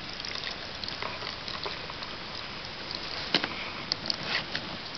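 Hands scraping and pushing wet mud around a die-cast toy train, with scattered small clicks and knocks over a steady hiss.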